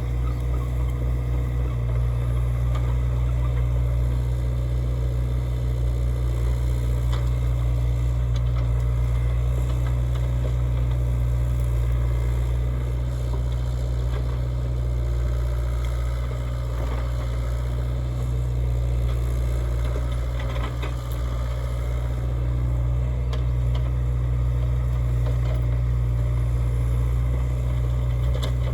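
Hyundai HX60 excavator's diesel engine running steadily at a constant speed, with scattered faint scrapes and knocks from the working machine.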